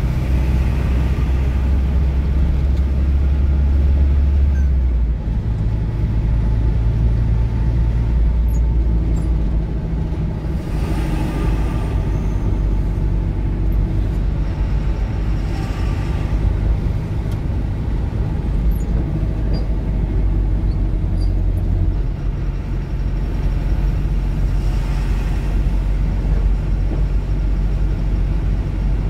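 Engine of a road vehicle running steadily while being driven, a continuous low drone whose pitch shifts in steps a few times, with road noise.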